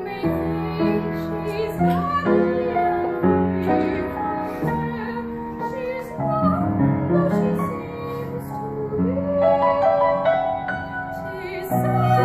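A woman singing a slow, sentimental ballad in a trained, operatic style with vibrato, accompanied by piano. The music grows louder near the end.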